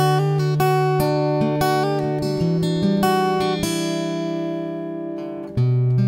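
Background music on acoustic guitar: plucked notes over held bass notes, dying away slowly, then a new chord struck about five and a half seconds in.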